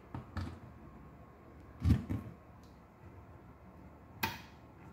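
Handling knocks of a cable plug against a DCC command station, with a heavier thump about two seconds in, then a single sharp click of the unit's switch being pressed near the end.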